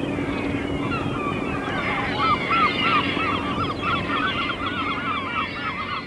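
A large flock of gulls feeding at a bait ball on the sea, calling over one another in a frenzy: a dense tangle of short, arched, rising-and-falling calls, with a low steady rumble beneath.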